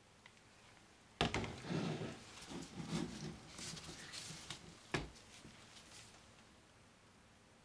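Plastic soap-making cups and a spatula being handled and set down on a countertop: a sharp knock about a second in, then several seconds of irregular clattering and small knocks, with another sharp knock about five seconds in.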